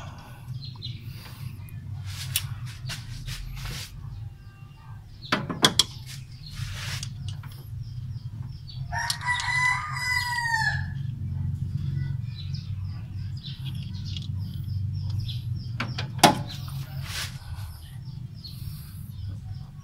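A rooster crowing once, a long call of about two seconds near the middle, over a steady low hum. Sharp clicks from hand tools at the engine's valve springs come about five seconds in and again near the end.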